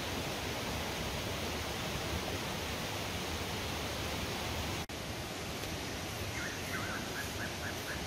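Steady rushing of a nearby river. Near the end a small bird gives a quick trill of chirps.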